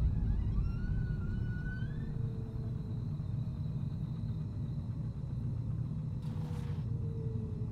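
Low, steady rumble. A faint rising squeak comes in the first two seconds, and a short hiss about six seconds in.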